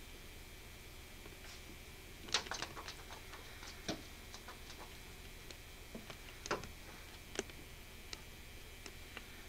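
Scattered light taps and knocks at a window pane and sill: a quick run of clicks a couple of seconds in, then a few single knocks, the heaviest about two-thirds of the way through.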